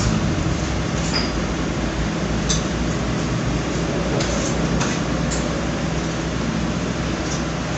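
Eating by hand: a few faint clicks and smacks of chewing over a steady hum and hiss of background noise.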